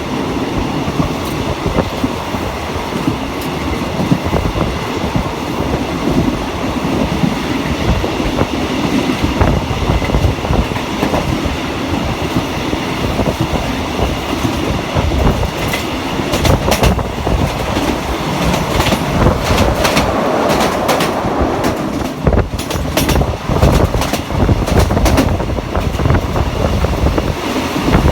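Passenger train running along the line, its wheels clicking over the rail joints; the clicks come thickest in the second half.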